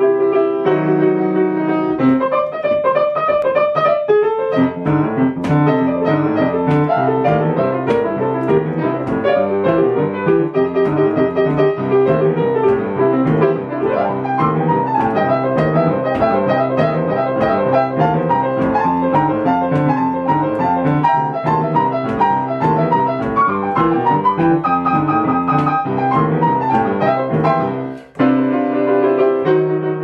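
Grand piano playing a boogie-woogie improvisation in C: a steady rolling left-hand bass line under quick right-hand figures. The playing breaks off for a moment about two seconds before the end, then starts again.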